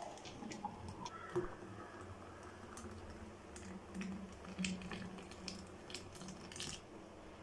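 Rose milk poured in a thin stream from a steel mixer jar into a glass tumbler: a faint liquid trickle and splash as the glass fills, with scattered small clicks.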